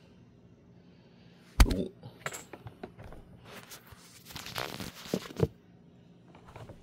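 A cardboard box of 300 Blackout ammunition being opened by hand: a sharp thump about a second and a half in, then rustling and tearing of the packaging, with two knocks just after the rustling.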